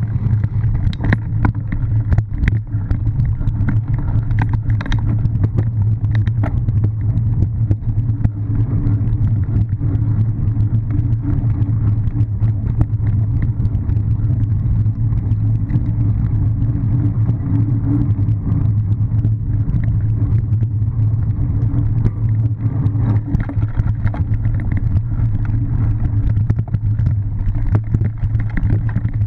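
Cyclocross bike ridden over bumpy grass and dirt, heard on an onboard action camera: a steady low rumble of wind and ground vibration with frequent short knocks and rattles from the rough surface.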